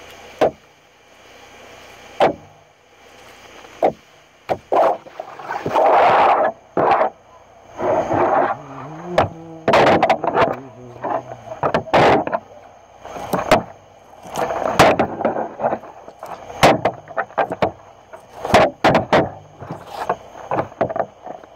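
Irregular scraping, pulling and knocking as a large catfish is handled and skinned by hand on a table: short noisy strokes of varying loudness, one after another, with sharp knocks in between.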